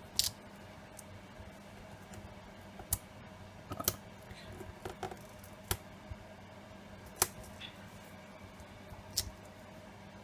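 Scattered small clicks and taps from hands handling cardstock and peeling and pressing foam adhesive dimensionals on a craft table, about seven over ten seconds, over a faint steady hum.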